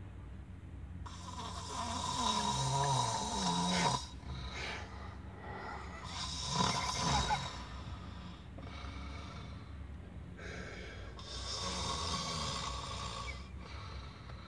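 A man snoring: three long, rasping snores, each a few seconds apart.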